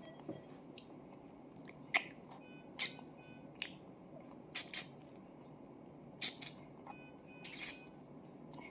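A hand patting a baby's back to bring up wind after a feed: short, soft pats, some in quick pairs, every second or so.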